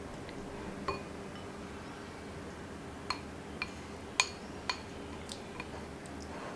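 About half a dozen light, irregular clinks of a glass mixing bowl being knocked as the Greek yogurt glaze is scraped and poured out of it, each with a short ring, over a faint steady low hum.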